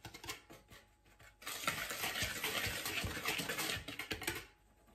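A whisk stirring dry flour, sugar and cocoa powder in a mixing bowl, breaking up clumps of cocoa: a fast, rustling scrape through the powder. It starts about a second and a half in and stops shortly before the end.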